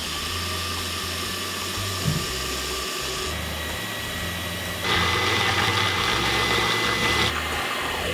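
Countertop blender running at speed, blending a liquid carrot cake batter: a steady motor whir that gets louder about five seconds in and drops back a couple of seconds later.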